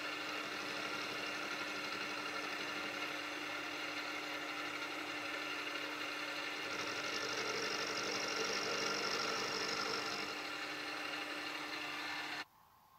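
Milling machine running, its end mill taking a light skimming cut along the cast-iron cross slide of a Boxford lathe: a steady machine hum with a high whine from about seven to ten seconds in. The sound cuts off suddenly just before the end.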